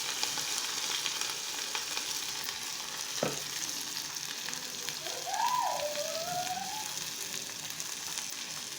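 Diced hot chili pepper sizzling and crackling in hot oil in a frying pan, a steady hiss. A short falling tone sounds about three seconds in, and a wavering whistle-like tone about five seconds in.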